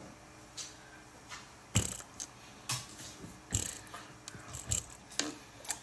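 A series of about ten short, sharp clicks and knocks at irregular intervals, the loudest a little under two seconds in.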